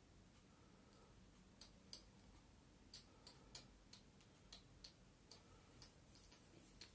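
About a dozen faint, sharp clicks at irregular intervals over near-silent room tone, starting about a second and a half in.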